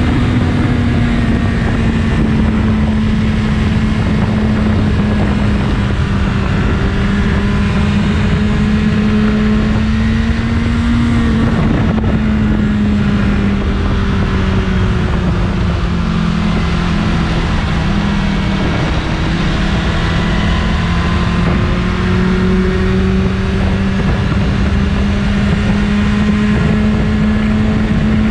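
BMW S1000RR inline-four engine on its stock exhaust, held at steady revs with a constant note. The pitch sags slightly past the middle and rises back toward the end.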